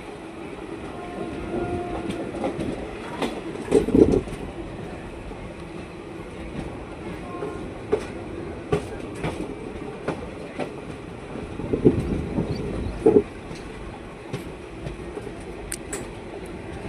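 Passenger train running on the track, a steady rumble with its wheels clacking irregularly over rail joints; louder knocks come about four seconds in and again around twelve to thirteen seconds in.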